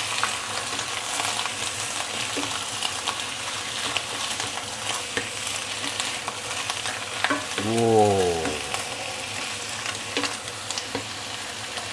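Chicken pieces frying in a wok of hot sesame and vegetable oil with ginger and garlic: a steady sizzle with scattered clicks from stirring. About eight seconds in, a short falling tone stands out briefly.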